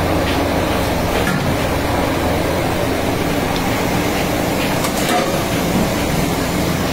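Steady drone of commercial kitchen machinery: a low hum under a constant hiss, with a few faint clinks of metal pans.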